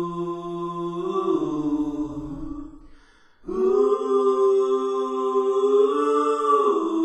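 Slow, chant-like vocal music: long held sung notes that change pitch in steps, with a short breath-like gap about three seconds in, then one long note that slides down near the end.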